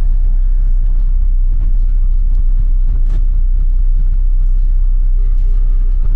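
Steady low rumble of a bus's engine and road noise, heard from inside the moving bus, with one faint click about three seconds in.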